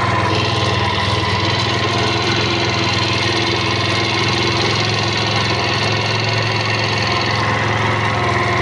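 Scooter engine running steadily at idle, with an extraneous noise from the scooter mixed into its sound.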